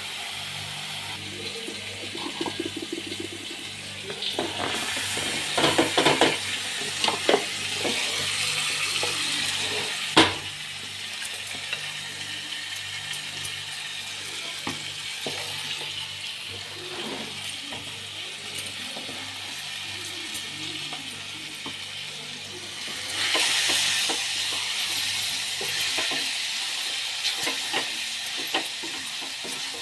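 Masala chow mein stir-frying in a pan: a steady sizzle with a spatula stirring and knocking against the pan. The sizzle swells louder twice, and one sharp knock stands out about ten seconds in.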